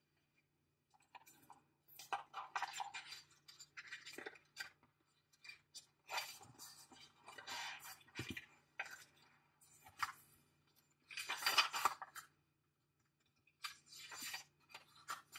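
A paperback guidebook and its cardboard deck box being handled: irregular bursts of paper and card rustling as pages are turned, with small clicks and light knocks in between.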